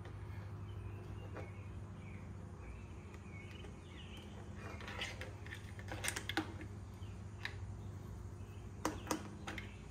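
Sharp plastic clicks from a hand working the SAE pigtail connector lead on the motorcycle: a pair about six seconds in and another pair near the end. Underneath is a steady low hum with faint chirps.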